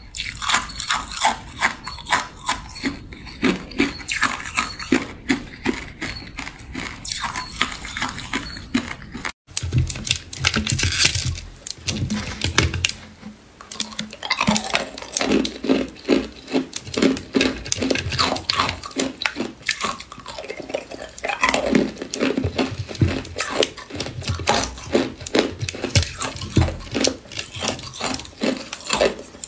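Ice being bitten and crunched in the mouth: fast, irregular runs of sharp cracks and crunches. First thin sheet ice, then, after a brief break about nine seconds in, ice cubes.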